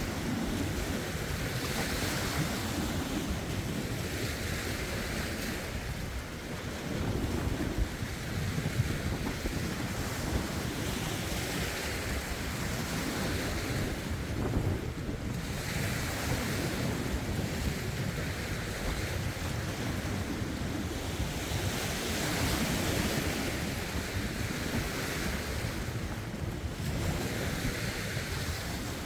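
Small lake waves washing over rocks, coming in washes every few seconds, with wind buffeting the phone's microphone as a low rumble underneath.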